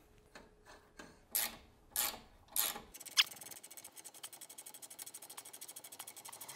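Ratchet wrench on the threaded rod of a screw-type bushing press, clicking in a fast, even run from about three seconds in as the new rear swing arm bushing is drawn in. Before that, a few short knocks and scrapes as the tool is handled.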